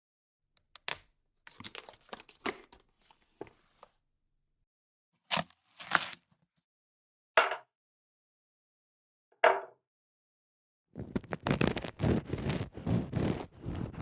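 Kitchen knife cutting food on a chopping board: a few separate crisp cuts and crunches with pauses between them, then from about eleven seconds in a fast, continuous run of chopping strokes.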